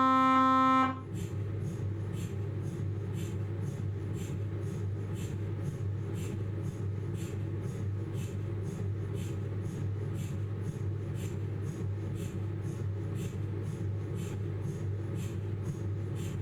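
Philips 1.5 T MRI scanner: a loud, steady buzzing tone from an imaging sequence cuts off about a second in. After it comes a steady low hum with soft, regular ticking about two and a half times a second.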